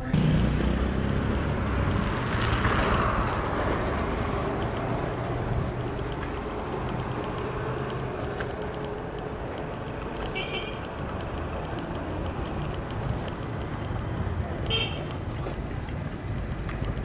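Wind rushing over the camera microphone and tyre noise while riding a bicycle, with two short high-pitched sounds about ten and fifteen seconds in.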